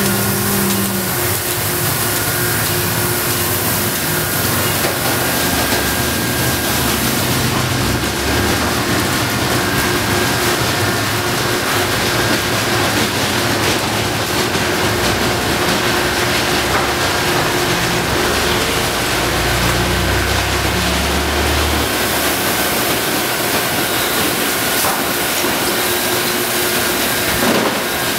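Automatic tunnel car wash running: rotating wash brushes scrubbing a car amid steady hissing water spray, over a steady motor hum.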